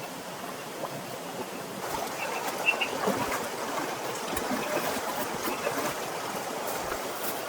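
Steady rush of water with scattered light taps and one sharper click about two and a half seconds in. A few faint short chirps sound briefly in the middle.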